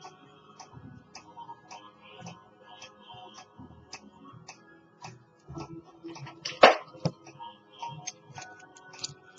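Steady clock ticking, about two ticks a second, over soft background music, with one sharp, louder click about two-thirds of the way through.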